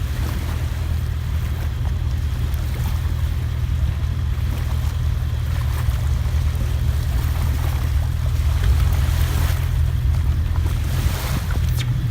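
Strong wind buffeting the microphone over choppy water, with the Cobalt 262's sterndrive engine running at a low idle as a steady low rumble underneath. It gets slightly louder about two-thirds of the way through.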